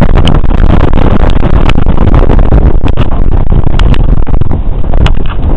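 Wind buffeting the camera microphone, a loud low rumble, with scattered sharp clicks.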